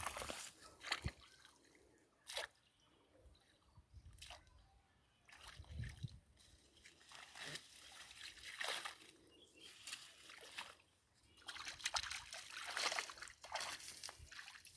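Shallow wetland water splashing and sloshing in scattered, irregular bursts, busier over the last few seconds, as fish are caught in a pit dug in the wetland.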